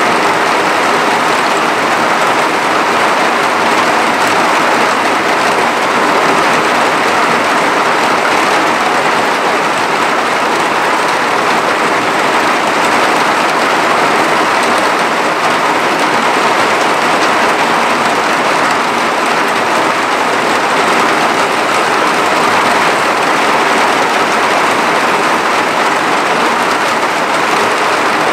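Heavy cloudburst rain: a steady, loud downpour with no break or change.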